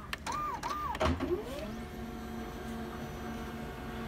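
HP Laser MFP printer's internal motors running: two short whirs that rise and fall in pitch, a clunk about a second in, then the drive motor spins up and settles into a steady hum.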